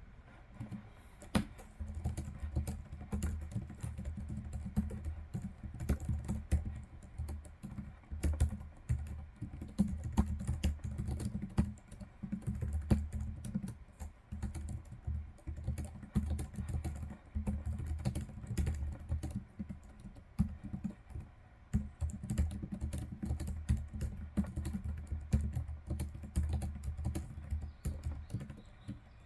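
Typing on a Logitech MX Keys Mini keyboard, its low-profile scissor-switch keys giving soft, dull clacks in fast, continuous strings with a couple of brief pauses.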